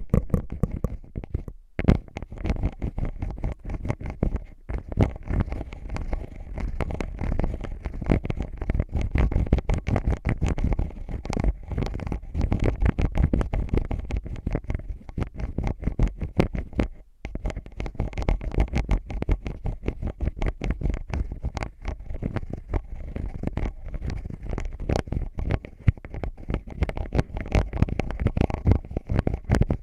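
A pair of eyeglasses scratched and tapped close against a microphone: a dense, continuous run of small clicks and scrapes with a low rumble, broken by a few short pauses.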